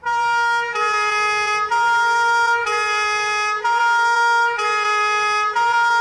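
Two-tone ambulance siren, slowed down. It alternates steadily between a higher and a lower note, each held about a second.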